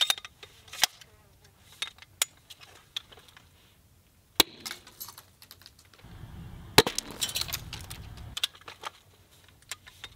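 Clicks, knocks and rattles of an airsoft rifle and gear being handled, with a hard click about four seconds in and a loud sharp crack near seven seconds followed by a second or so of dense rattling.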